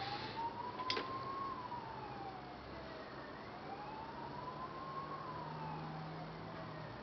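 Emergency-vehicle siren wailing, its pitch rising and falling slowly, about one full sweep every three and a half seconds. A single sharp click about a second in.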